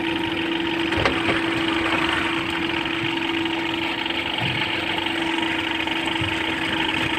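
Engine of a concrete-pouring crane lift running steadily with a constant hum, and a single sharp knock about a second in.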